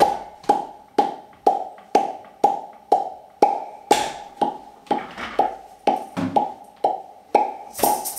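Mouth percussion from a hand cupped at the microphone, an even popping knock about twice a second, laid down as a beat on a Boss RC-30 loop station. Near the end a faster, hissy shaker-like layer joins the beat.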